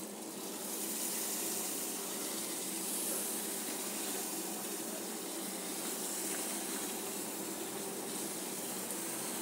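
Crushed malt pouring in a steady stream from a plastic cooler into a stainless steel brew kettle of wort, a continuous rushing hiss.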